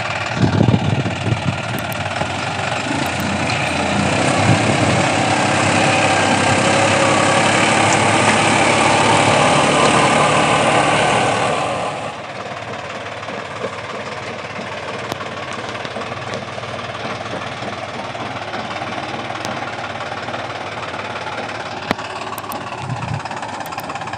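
John Deere tractor's diesel engine running steadily under load while pulling a rotary tiller through soil. About halfway through, the sound drops suddenly to a quieter, steady run.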